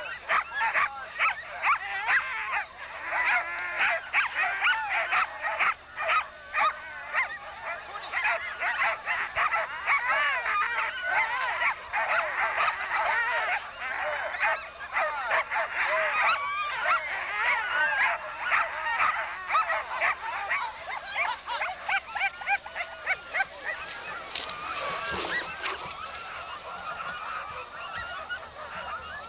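Many sled dogs barking and yelping together in a dense, continuous chorus of overlapping calls, thinning a little near the end.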